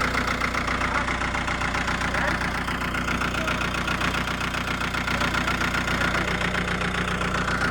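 Toyota Grandia diesel engine idling steadily, running again after a snapped timing belt and top overhaul had left it unable to start.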